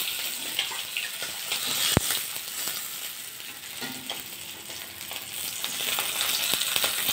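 Parshe fish frying in hot mustard oil in a metal kadai: a steady sizzle, with a steel spatula scraping and lifting the fried fish. There is one sharp clink of the spatula on the pan about two seconds in.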